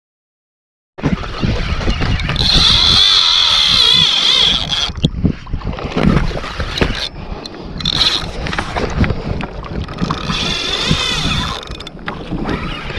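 Shimano Saragosa 10000 spinning reel whining as it is cranked fast, a wavering high whine that comes in three spells, the longest about a second in and lasting two seconds, over wind buffeting the microphone.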